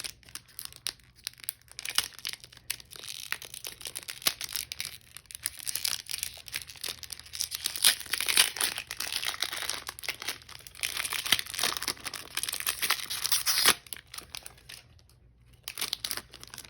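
Foil wrapper of a Pokémon TCG Fusion Strike booster pack being torn open and crinkled by hand: an uneven crackling, loudest in the middle and dying down near the end.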